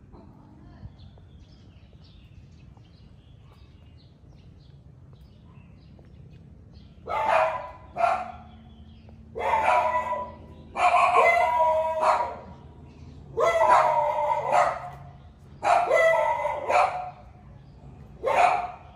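A dog barking in a series of loud bouts, starting about seven seconds in after a quiet stretch, with about seven bouts one to two seconds apart.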